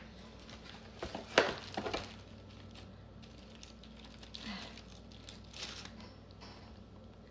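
Paper liner crinkling in a plastic takeout tray and a fork clicking against it while a wing is picked out, with a sharp cluster of clicks and rustles about a second and a half in and softer rustles later.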